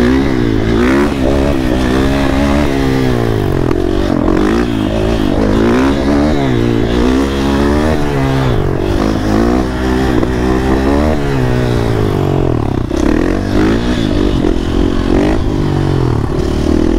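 Motorcycle engine under hard riding, its pitch climbing and dropping back again and again as the rider accelerates and lets off.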